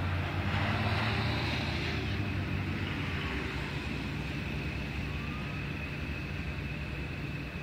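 A car's tyres hiss on wet pavement as it crosses the tracks during the first two seconds. Under it, a grade-crossing warning bell rings steadily over a low rumble.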